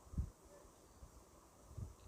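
A couple of faint, dull thumps, one just after the start and another near the end.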